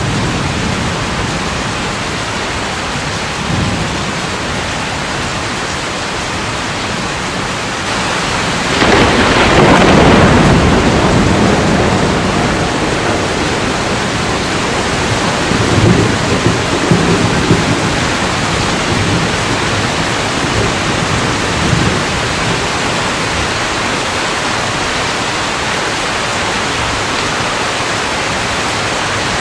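Steady heavy rain with rumbles of thunder, the loudest a long roll about nine seconds in and a weaker one around sixteen seconds.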